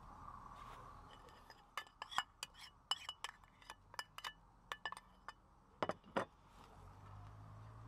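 Metal spoon stirring in a small cup, clinking against its side in a quick, irregular run of sharp clinks with a light ring, the last two, about six seconds in, the loudest.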